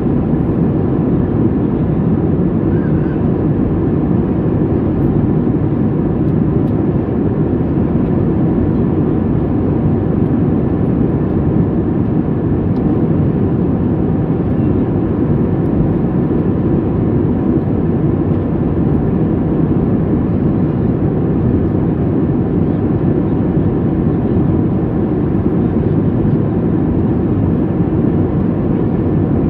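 Steady cabin noise of a Boeing 737 MAX 8 at cruise: its CFM LEAP-1B engines and the airflow over the fuselage make an even, low rush, with a faint steady tone above it.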